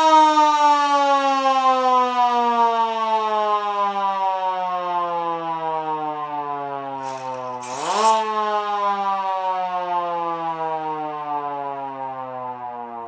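FX-200 siren winding down after a blast: one held tone whose pitch slowly falls as it fades. About eight seconds in it is briefly powered up again, a quick rise in pitch with a click, then it winds down further.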